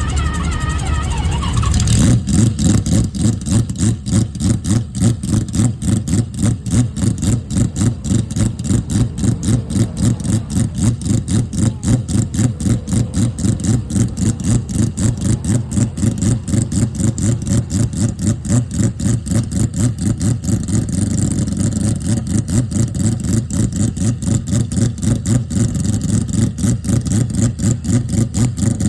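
Mazda 767B race car's four-rotor rotary engine running loud and steady with an even, lumpy pulsing of about three beats a second, after a brief bit of music that stops about two seconds in.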